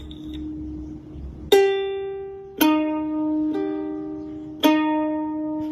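Ukulele strings plucked by a cat's paw: four single notes about a second apart, alternating between two pitches, each ringing on and fading.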